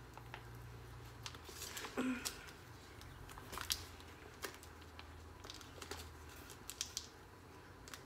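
A hard-to-open package being worked at by hand: scattered clicks, crinkles and short rustles of packaging, with a small cluster about two seconds in.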